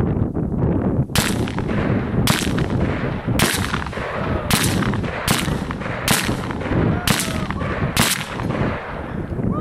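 An M1 Garand rifle in .30-06 fires eight semi-automatic shots at a steady pace of about one a second, emptying a full eight-round clip.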